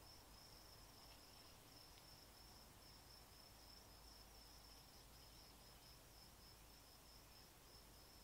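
Faint, steady high-pitched insect trilling, like a cricket chorus, over a low background hiss.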